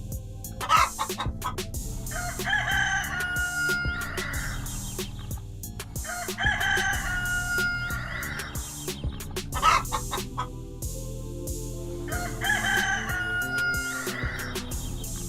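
A rooster crowing three times, about six seconds apart, each crow the same long call. Sharp clicks come between the crows over a steady low backing.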